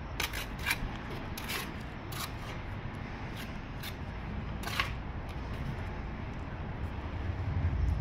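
Hand bricklaying: a run of short scrapes and clicks of brick and mortar being handled and pressed into a mortar bed, mostly in the first five seconds. A low steady rumble sits underneath and grows louder near the end.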